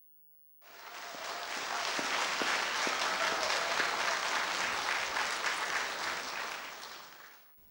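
Audience applauding in a concert hall, starting about half a second in, building to a steady level and dying away near the end.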